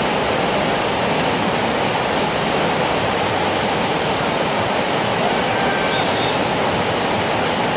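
Fast-flowing river water rushing steadily, the loud even roar of whitewater.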